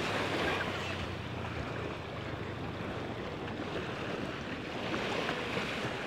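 Sea surf washing onto a sandy beach: a steady rush of breaking waves that swells a little near the start and again about five seconds in.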